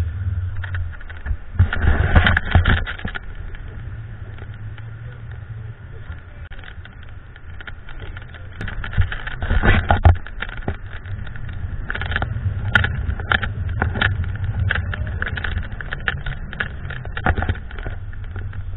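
Wind rushing and buffeting over the microphone of a camera mounted on a tandem paraglider in flight: a steady low rumble with irregular gusty bursts, loudest about two seconds in and again around ten seconds.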